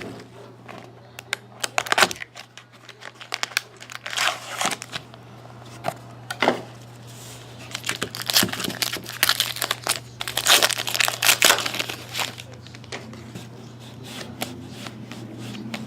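Trading card packs being torn open, with irregular crinkling and tearing of the wrappers and rustling of cards being handled, over a steady low hum.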